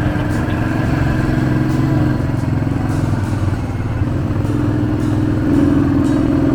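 Motorcycle engine running under way, its pitch dropping about two seconds in and rising again near the end.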